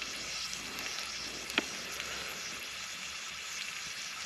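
Hot oil sizzling steadily in a frying pan around whole cloves and green cardamom pods. There is a single sharp pop about a second and a half in.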